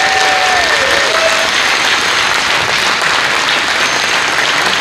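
Audience applauding steadily as a speaker is welcomed onto a stage, with a held, whistle-like tone over it in the first second that dies away.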